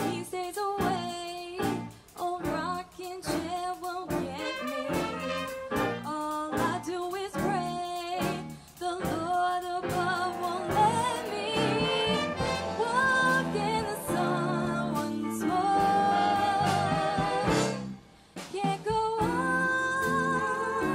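A live big band of saxophones and brass with a female vocalist. Short, rhythmic band chords fill the first half. From about halfway the singer holds long, wavering notes over sustained horn chords, with a brief break near the end.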